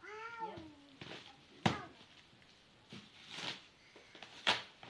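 A cat meows once at the start, a single call that rises and falls, followed by a few sharp knocks, the loudest about a second and a half in.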